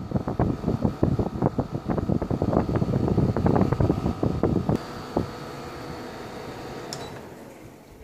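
Honeywell HL14CESWW portable air conditioner blowing cold air from its outlet vent, the airflow buffeting the microphone in rapid gusts for the first few seconds. Then the unit's fan runs steadily with a faint high tone, until a click about seven seconds in, after which the sound dies down.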